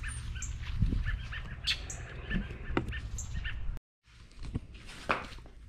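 Small birds chirping in short repeated notes over a low rumble. The sound cuts out briefly a little under four seconds in, then comes back quieter with a couple of sharp knocks.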